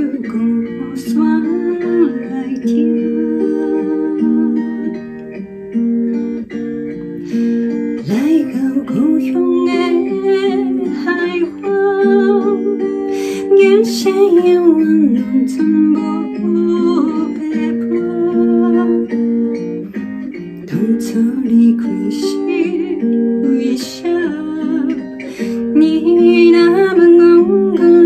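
A woman singing a Taiwanese Hokkien song over instrumental accompaniment.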